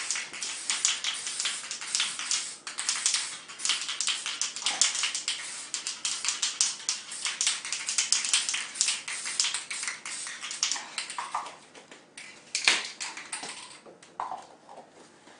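Enamel spray-paint can in use: a fast, uneven clatter of clicks and hiss in quick bursts. One sharp, loud click comes a little after two-thirds of the way through, and then the sound mostly dies away.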